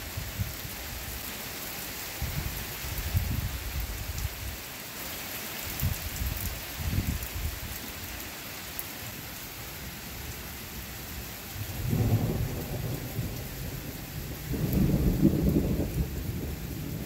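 Steady rain hissing down during a thunderstorm, with thunder rumbling. One roll comes about twelve seconds in, and a louder, longer one follows a couple of seconds later.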